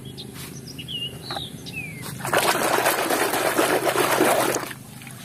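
A hand splashing and sloshing through a tub of soapy water for about two and a half seconds, starting about two seconds in. A few short bird chirps come before it.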